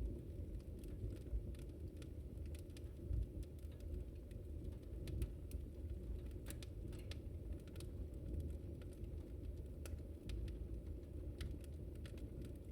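Wood fire burning: frequent irregular sharp crackles and pops over a low, steady rumble of the flames.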